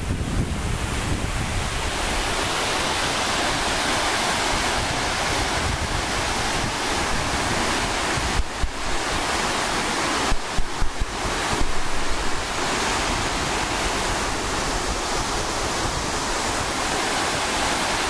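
Water overflowing the face of a concrete dam spillway, a steady, heavy rushing. A few brief low bumps of microphone buffeting come past the middle.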